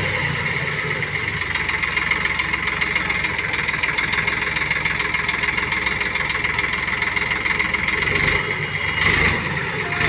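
Eicher 480 tractor's diesel engine running steadily while its hydraulics tip a trailer loaded with mud, with a steady high whine over the engine note.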